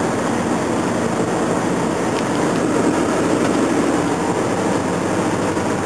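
Steady road and wind noise inside a car cruising on a highway.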